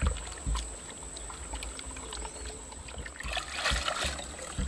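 Hands scrubbing a plastic toy car under muddy water in a plastic tub: water sloshing and splashing, with a few dull knocks. About three and a half seconds in there is a louder splash as the toy is lifted out, dripping.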